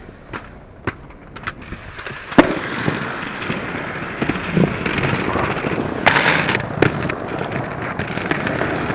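Skateboard wheels rolling on rough pavement. A few light clicks come first, then a sharp clack about two and a half seconds in, after which the rolling grows louder and steadier. A harsher burst of noise follows around six seconds in.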